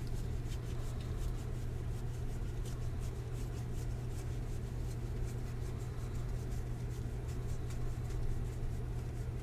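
Trading cards being handled and flicked through, a run of faint irregular flicks and rustles over a steady low hum.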